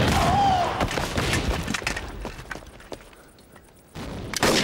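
Battle sound effects of black-powder rifle and musket fire: a brief shout at the start, then scattered shots that thin out and fall quiet, and a sudden loud burst of firing near the end.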